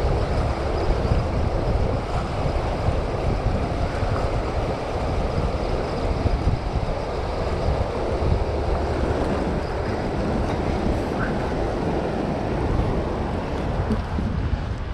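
Steady rush of churning tailwater below a hydroelectric dam with its generators running, with wind buffeting the microphone.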